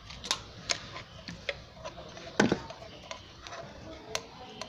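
Handling noise: irregular light clicks and knocks on a wooden tabletop as a soldering iron and solder wire are brought to a small DC motor's terminal, with one heavier knock about halfway through.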